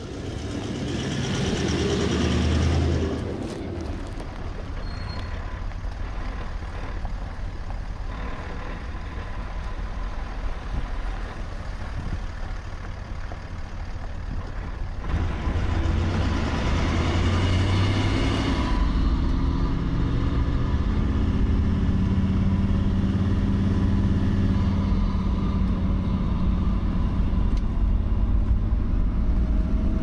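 Toyota LandCruiser 76 Series V8 turbo-diesel driving on a dirt bush track. In the first few seconds it grows louder as it passes close by; after that it is a steady engine and tyre rumble heard from inside the cabin, louder from about halfway.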